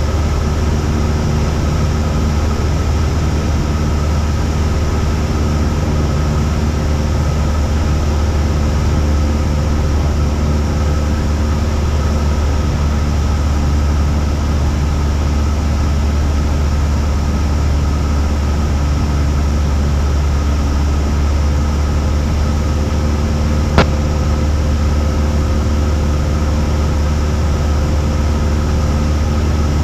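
Cessna 172's piston engine and propeller droning steadily in flight, an even hum with a strong low tone. A single sharp click about 24 seconds in.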